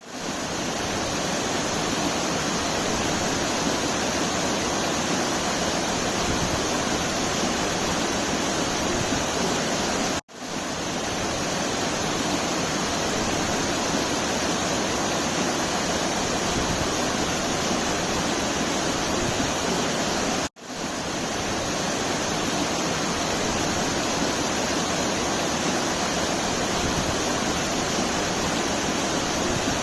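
Waterfall rushing in a steady, even roar of falling water. It cuts out for a split second twice, about a third and two-thirds of the way through.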